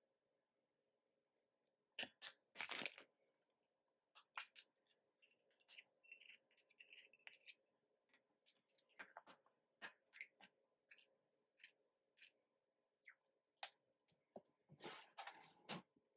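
Faint, scattered taps and scrapes of a plastic measuring spoon and a utensil against a stainless steel mixing bowl of flour as baking soda and salt are added and the dry ingredients stirred, with a quick run of scraping near the end.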